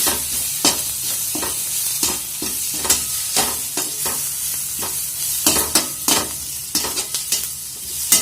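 Spatula stirring and scraping masala in a kadai, with irregular sharp knocks against the pan over a steady oil sizzle, as the onion, tomato and spice-powder mixture fries to cook off the raw smell of the spices.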